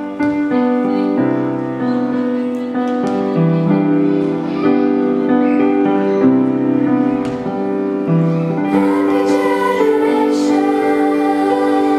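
Piano accompaniment playing a slow introduction in sustained, changing chords, with a children's choir coming in singing about nine seconds in.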